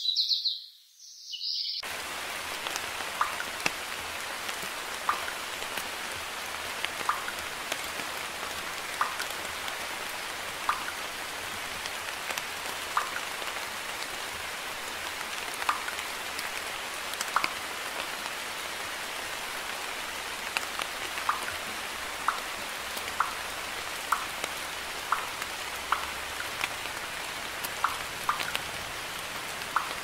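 Steady rain hissing, with single louder drops ticking at irregular intervals, about one every second or two. It is preceded by a brief bit of bird chirping that cuts off abruptly about two seconds in.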